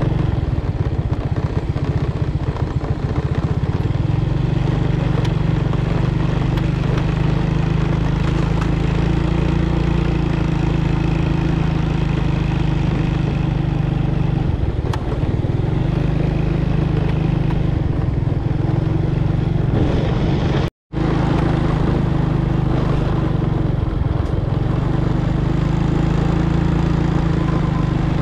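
A small engine running steadily at a constant speed. The sound cuts out for an instant about two-thirds of the way through.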